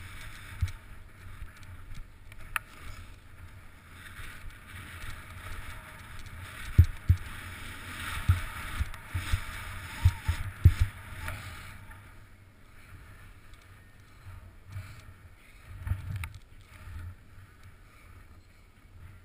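Snow hissing and scraping under a rider's edges on a downhill run through choppy powder, loudest in the middle, with a run of heavy thumps there as the rider rides over bumps and the mounted camera is jolted. Wind rushes on the microphone throughout.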